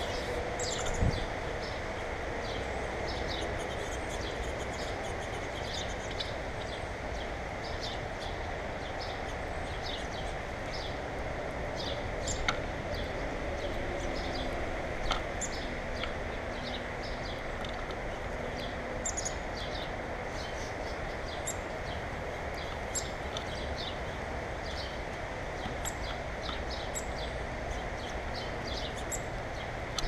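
Backyard birds chirping with many short, high notes throughout, over a steady outdoor background rumble. There are a few louder knocks, the strongest about a second in, as a common grackle lands on the wooden platform feeder.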